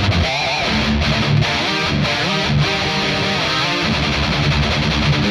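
Double-tracked high-gain electric guitar playing a metal riff through the Overloud TH-U 'Kally' amp-sim rig, a Violence channel into a Bogie 4x12 cabinet model miked with an SM57 and an MD421. Low rhythm notes run under higher notes that waver in pitch.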